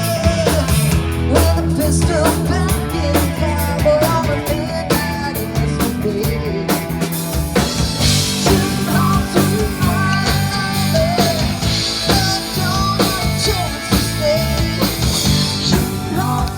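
A rock band playing during a soundcheck: guitar, bass and drum kit, with a steady beat.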